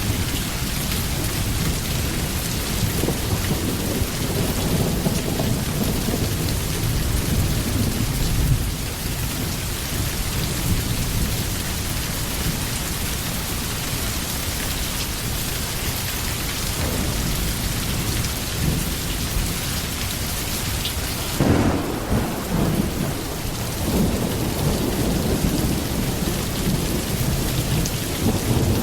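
Steady heavy rain with deep rolling thunder underneath, and a sharper crack of thunder about two-thirds of the way through.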